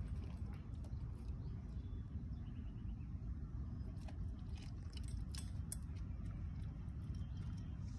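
A dog crunching dry kibble from a steel bowl: a run of short, sharp crunches, densest in the middle, over a steady low rumble.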